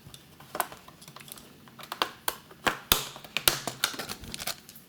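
Irregular small clicks and taps from a screwdriver and the laptop's plastic underside being handled while its screws are removed, thin at first and coming thick and fast in the second half.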